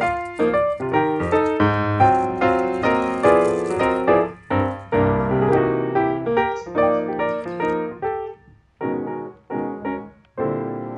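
Background piano music: chords struck about twice a second, thinning out late on to a few separate chords with short gaps, the last one left ringing.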